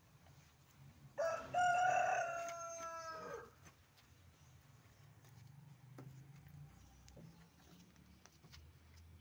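A rooster crows once, about a second in. The crow lasts about two seconds, and its last note is held and slowly falls in pitch.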